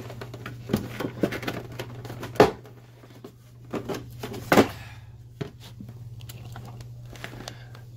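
Sheet-steel mounting plate being worked loose and lifted off the plastic back of a ductless mini split indoor unit: scattered sharp clicks and knocks of metal against plastic, the loudest about two and a half and four and a half seconds in, over a steady low hum.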